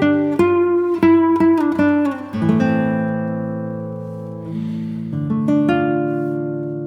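Background music on acoustic guitar: a quick run of plucked notes, then chords left to ring and fade, with new notes struck a little past the middle.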